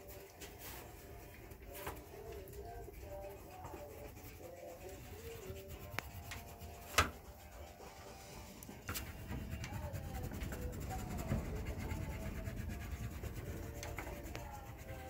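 Wax crayon rubbing and scratching on paper in short repeated strokes, the rubbing growing fuller in the second half. A single sharp click about seven seconds in.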